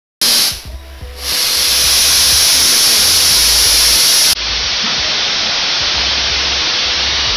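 Oxyhydrogen (HHO) welding torch fed with compressed air, its flame jetting with a loud steady hiss that starts suddenly, dips briefly about a second in, then holds even.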